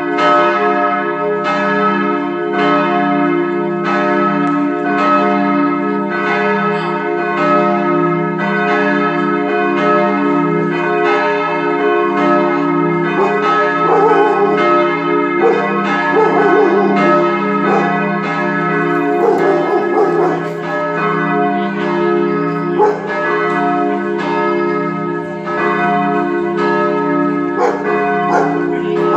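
Steel church bells cast by the Bochumer Verein in 1921, swinging and ringing with a steady run of strokes and a long hum between them. The d¹ and f¹ bells are ringing while the low h° is held back, and the f¹ is reported to keep missing strokes since the restoration. In the middle stretch a wavering sound whose pitch rises and falls comes and goes over the ringing several times.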